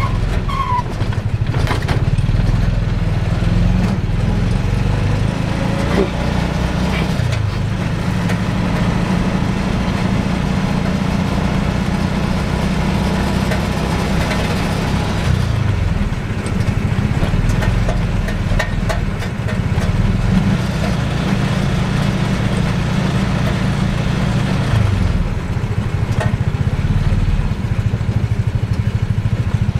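A mototaxi's motorcycle engine running under way, heard from inside the passenger cab along with road and wind noise. Its pitch falls and rises again a few times as the driver changes speed.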